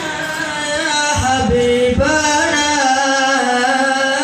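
A solo voice singing or chanting long, wavering held notes, amplified through a live PA sound system.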